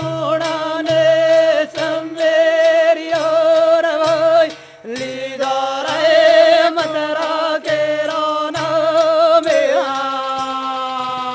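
Banjara devotional song: men's voices chanting in long held, wavering notes over steady hand-drum beats and brass cymbals. There is a brief break about four and a half seconds in, and near the end a long held note that falls slightly.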